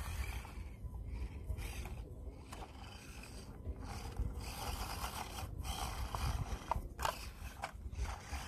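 Axial SCX24 micro RC crawler climbing rock, its small electric motor and gears whirring, with scattered clicks and scrapes of the tires and chassis on the stone. A steady low rumble of wind on the microphone runs underneath.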